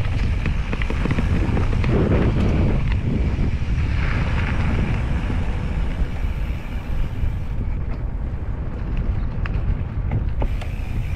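Wind noise buffeting a GoPro's microphone while riding an e-mountain bike, with a few small clicks and rattles.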